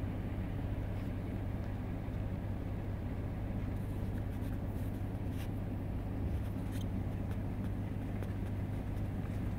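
Car running steadily, its engine and road rumble heard from inside the cabin as a constant low hum.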